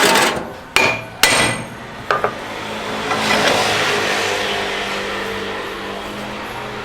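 Sharp metallic clanks and knocks on brake parts, a few of them ringing briefly, followed about three seconds in by a steady hissing whir of a workshop tool running.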